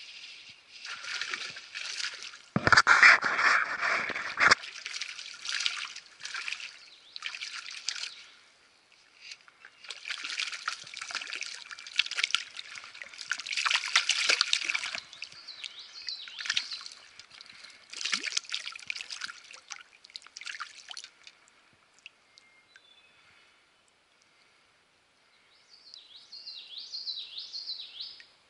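Creek water sloshing, splashing and gurgling around an action camera held at and under the surface of a small stream, in irregular bursts with one loud, deep splash about three seconds in. Near the end, a quick run of short falling chirps.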